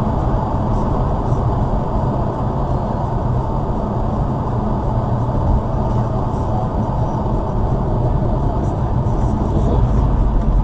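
A vehicle driving: a steady low rumble of engine and road noise, swelling slightly near the end, with no crash or impact heard.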